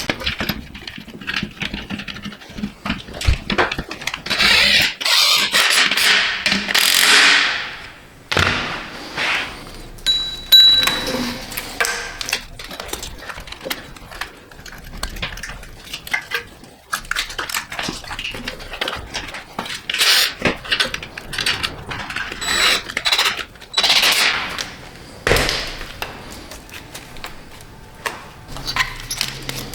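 Hand tools working on engine parts: a run of irregular clicks and clanks, broken by several hissing bursts, the longest lasting a few seconds.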